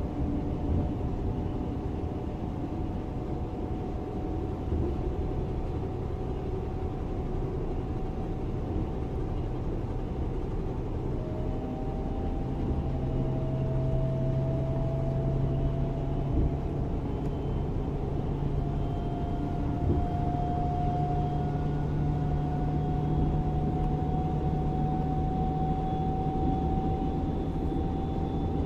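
Class 425 electric multiple unit running under power, its traction drive giving a steady whine over a low rumble. The whine climbs slowly in pitch as the train picks up speed, with a new pair of tones coming in about halfway through.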